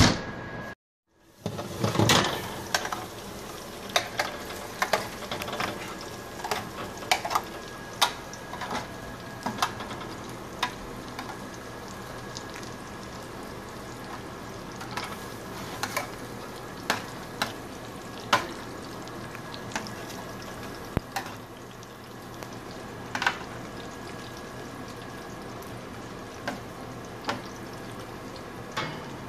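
Oven door shutting with a clunk at the start. Then meatballs sizzle in hot oil in a metal baking pan, with metal tongs clicking and scraping against the pan as the meatballs are turned.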